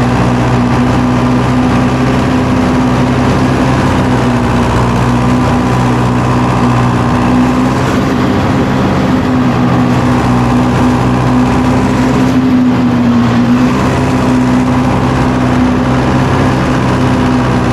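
Tractor engine running steadily while pulling a chisel plow through a field, its note sagging briefly about two-thirds of the way through.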